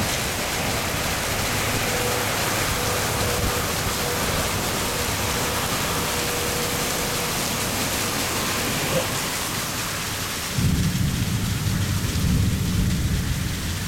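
Heavy rain pouring steadily, with a low rumble of thunder that starts suddenly about ten seconds in and lasts about three seconds.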